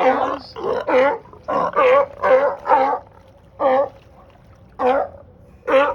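California sea lions barking: a quick string of loud, honking barks, then single barks about a second apart.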